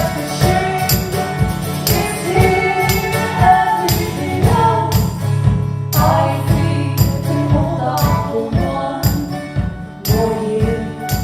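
Live acoustic folk music from a duo: a steady beat with a jingling, tambourine-like percussion over strummed instruments and a strong low bass, with melodic, vocal-like lines above.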